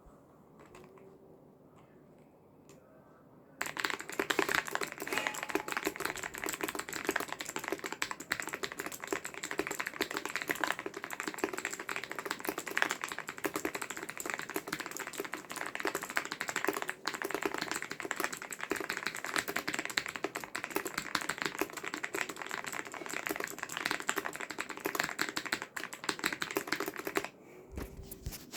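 Rapid typing on a computer keyboard: a dense, continuous stream of key clicks that starts about three and a half seconds in and stops about a second before the end.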